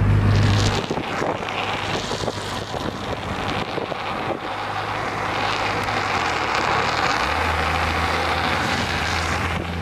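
Cars on the road: a low engine drone that drops away under a second in, then a steady rushing noise with wind on the microphone, and an engine drone coming back in about seven seconds in.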